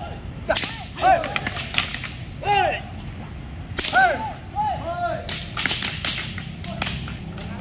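Wooden kung fu staffs swung fast through the air, giving repeated whooshes whose pitch rises and falls with each stroke, mixed with a few sharp wooden clacks.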